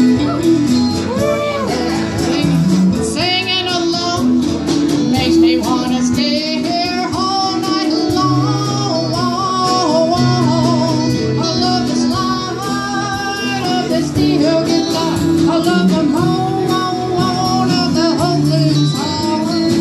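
Live band playing a song: a singer with a wavering vibrato over strummed acoustic guitar and a steady bass line.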